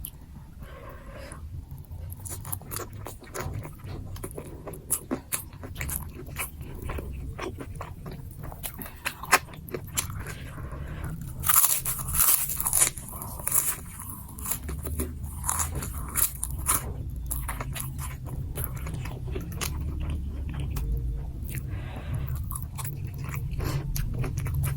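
Close-miked eating of nasi gila (Indonesian spicy fried rice): chewing and biting with many short sharp clicks and crackles, loudest in a crunchy stretch about halfway through, over a steady low hum.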